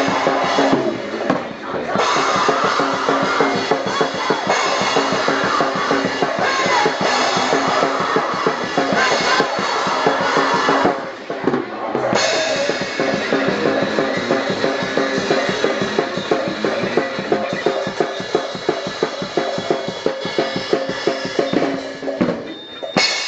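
A live band playing loud: a drum kit keeps a fast beat under electric guitar and a vocalist on the microphone. The band breaks off briefly about a second in, again around eleven seconds in, and near the end.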